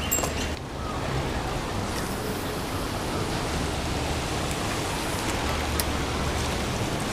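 Steady, even wash of ocean surf.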